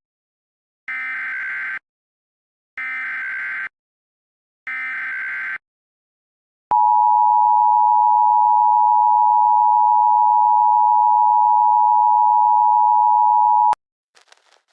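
Emergency Alert System broadcast signal: three short bursts of the SAME digital header screech, each about a second long with a second's pause between them, then the loud steady two-tone EAS attention signal for about seven seconds, cut off with a click.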